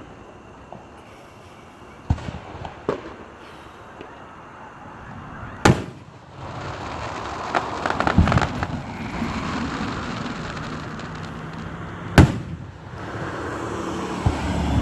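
Aerial firework shells bursting in a display. Separate booms fall about 2, 3, 6 and 12 seconds in, the last the loudest, with a quick run of crackling pops around 8 seconds.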